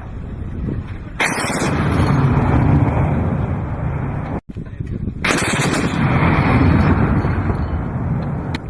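ZU-23-2 twin 23 mm anti-aircraft autocannon firing two long bursts of about three seconds each, the shots too rapid to tell apart, with a short break between them.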